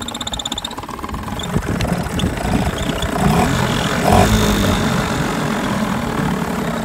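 Small Yamaha outboard motor running unevenly on half choke just after catching, its speed rising and falling.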